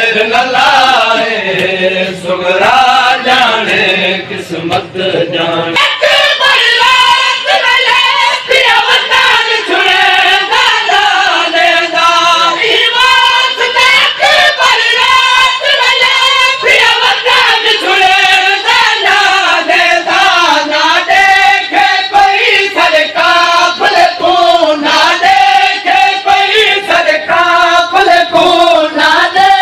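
Noha, a Shia mourning lament, sung loudly by a group of voices in chorus. Many sharp slaps run beneath it. About six seconds in, the low voice drops away and the chorus sings higher.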